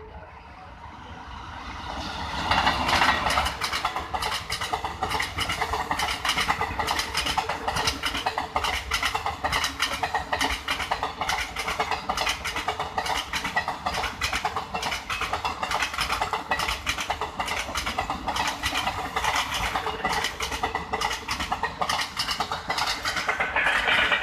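Express passenger train passing at speed behind a WAP-4 electric locomotive, its wheels clattering rhythmically over the rail joints. The sound swells about two seconds in as the train arrives and keeps up a fast, continuous clatter of the coaches going by.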